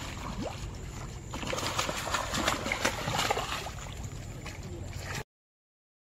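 Water splashing and sloshing as a hooked fish thrashes at the surface of a river, with a run of quick splashes in the middle. The sound cuts off abruptly about five seconds in.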